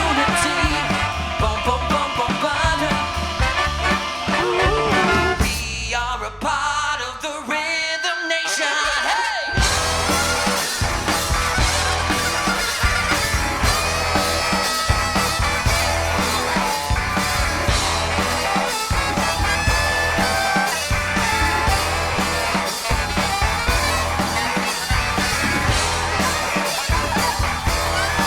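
Live soul band playing a song. About six seconds in, the bass and drums drop out for a few seconds, leaving a thin passage, and then the full band crashes back in and plays on.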